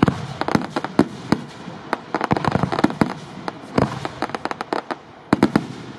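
Aerial fireworks display: shells bursting in rapid, irregular volleys of sharp bangs and pops, with a brief lull about five seconds in before another burst.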